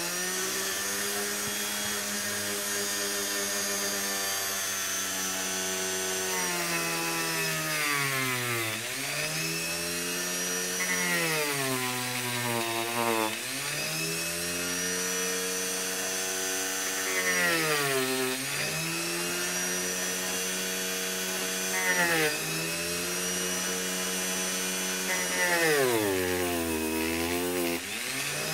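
Dremel rotary tool on a flex shaft, spinning a sanding drum against EVA foam. It gives a steady motor whine that dips in pitch and recovers about five times.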